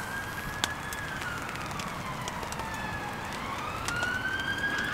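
Emergency-vehicle siren wailing in one slow cycle, its pitch falling and then rising again. It sounds over the steady hiss of rain, with a few sharp drip clicks.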